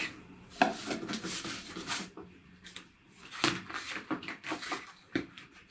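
Stiff card number-line sheets lifted from a cardboard box and shuffled on a wooden table: a string of short rustles and light taps of card.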